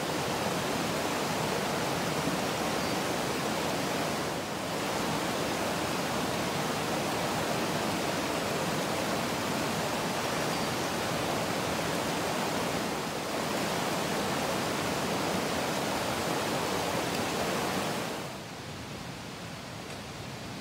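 Steady rushing of a boulder-strewn mountain brook, water tumbling over and between rocks. About 18 seconds in it drops to a much quieter outdoor background.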